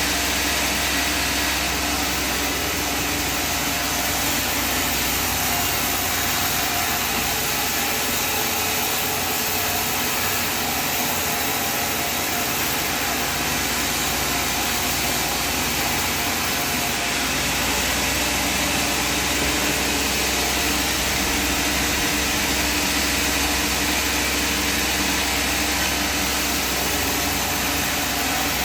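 Sawmill machinery running steadily: a dense, even mechanical noise that holds unchanged without a break.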